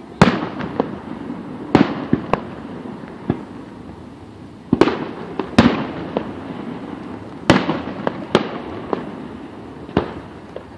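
Aerial fireworks shells bursting: a run of about eight loud booms, each trailing off in an echo, with smaller pops and crackles in between.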